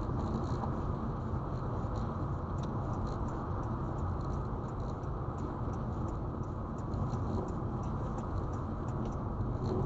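Steady road and tyre noise inside a moving car, with scattered light ticks and taps throughout.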